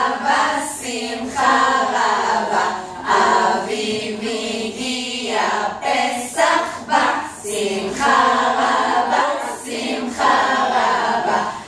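A group of women singing together a cappella, with no instruments.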